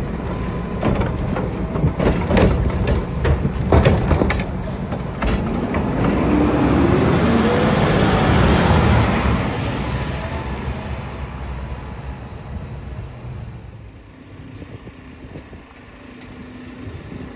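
Mack LR garbage truck with a Heil Curotto-Can automated arm dumping a cart, with a run of sharp knocks and bangs as the cart is tipped and shaken out. The truck's engine then pulls away past the camera, rising in pitch and loudest about eight seconds in, and fades as it drives off.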